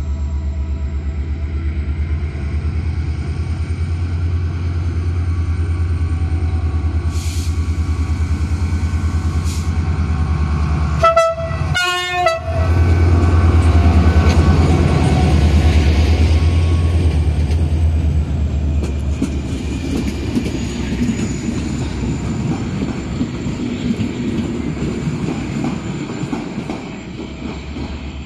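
GM diesel-electric locomotive pulling out with a train of coaches, its engine drone swelling as it passes close and then easing off as the coaches roll by with a clickety-clack. About eleven seconds in, its horn sounds two short blasts.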